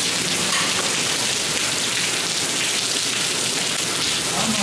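A steady, even hiss like heavy rain, unchanging throughout.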